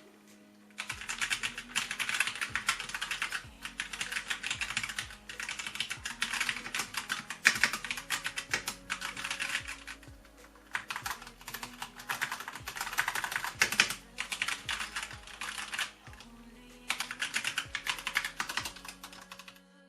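Typing on a Qeeke CR840 mechanical keyboard: rapid keystrokes in bursts of several seconds, with short pauses between them.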